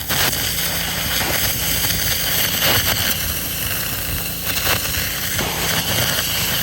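Gas pressure washer's 0-degree-tip jet spraying at high pressure into a pumpkin: a loud, steady hiss that starts suddenly as the trigger is pulled, over the engine's steady running.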